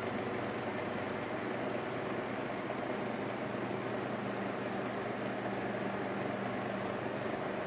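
Steady mechanical background hum with a few constant low tones.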